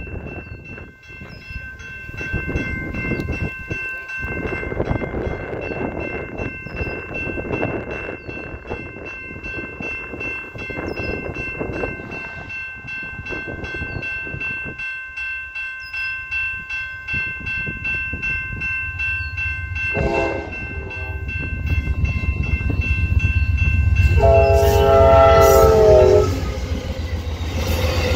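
Amtrak P42DC diesel locomotive approaching at the head of a passenger train and sounding its horn: a short blast about two-thirds of the way in, then a long chord of several notes, the loudest sound. Under it the low rumble of the engine and wheels builds as the train arrives and passes close by near the end.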